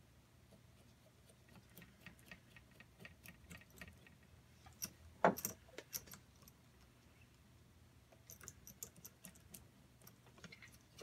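Small metal engine parts clicking and tapping against each other and the wooden base as they are fitted together by hand, with one louder knock about five seconds in.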